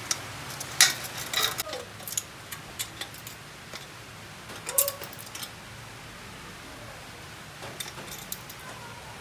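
Tin snips cutting and bending a galvanized metal furring channel: sharp metallic clicks and clinks, loudest about a second in and again just before the middle, then a few light taps near the end.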